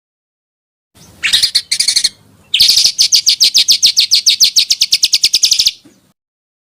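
Small songbird singing: two short harsh bursts, then a long, fast, even trill of about a dozen notes a second lasting some three seconds, which cuts off abruptly.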